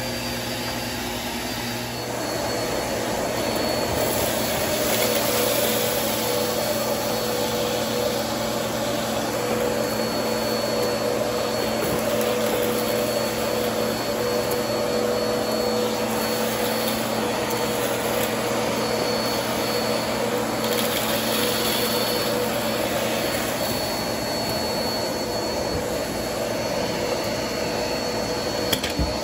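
Vacuum cleaner running steadily, its bare hose end sucking at the carpet: an even rush of air with a steady whine over it. A brief knock near the end.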